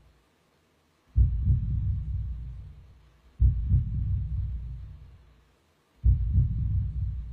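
Deep, slow booms in the performance soundtrack: three heavy double thumps, like a heartbeat, each dying away over about two seconds.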